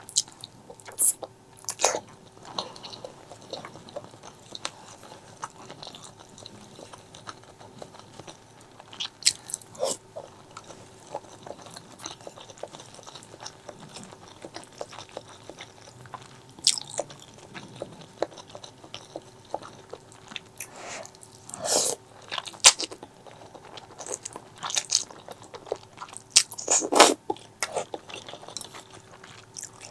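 Close-miked eating: irregular bites and chewing with sharp, crunchy, wet clicks, a few much louder than the rest, over a faint steady hum.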